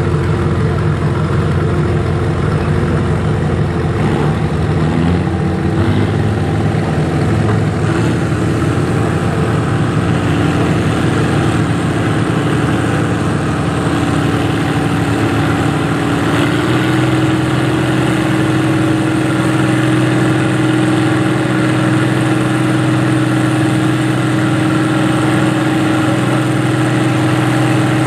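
Farm tractor engine idling, its speed rising about four to six seconds in and stepping up again around sixteen seconds.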